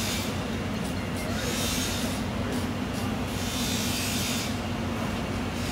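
A steady low mechanical hum, with a high hiss that comes and goes several times.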